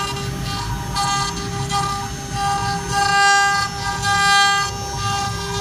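CNC wood router carving a 3D relief into a wood board. The spindle gives a steady whine, and the axis drive motors add whining tones that change pitch and start and stop every fraction of a second as the cutter moves, over a low rumble.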